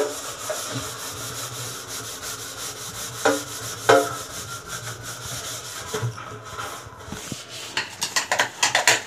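Steel wire scrubber scouring a stainless steel kitchen sink: a fast, steady rasping rub, with two sharper strokes about three and four seconds in, that stops about six seconds in. Near the end a steel plate clatters as it is handled.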